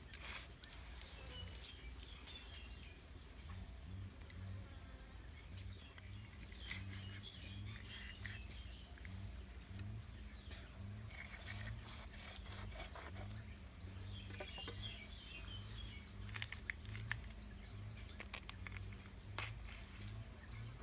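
Quiet rural ambience: a steady high insect trill with bird chirps now and then, over a faint low pulsing hum. A few faint clicks come in the middle.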